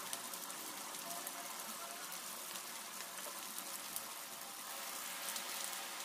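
Mutton chukka sizzling in oil on an iron tawa: a steady, faint frying hiss with small crackles. The gravy has cooked down and the dish is nearly done.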